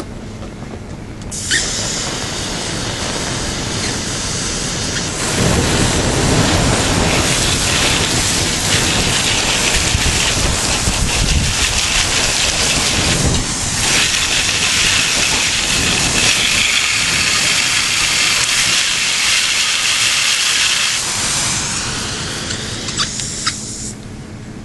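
A jet of water sprayed onto a burning toy Hummer model and the dirt around it, putting the fire out. It makes a loud, steady hiss that starts suddenly about a second in, with heavier, deeper splashing from about five seconds in. The hiss cuts off about a second before the end.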